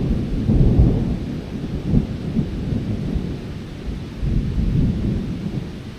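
Rolling thunder from a storm a mile or two off, a continuous deep rumble that swells and fades several times, loudest in the first second or so.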